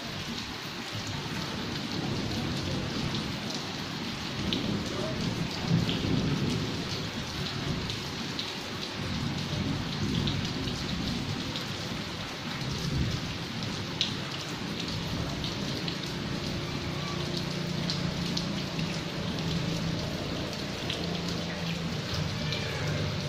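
Steady heavy rain falling on a flooded yard, with sharp close drip ticks on the window louvres and a low rumble underneath.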